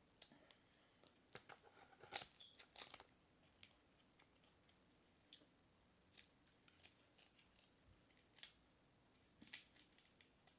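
Crab leg shells being cracked open by hand and the meat chewed: scattered faint cracks and crunches, busiest a second or two in.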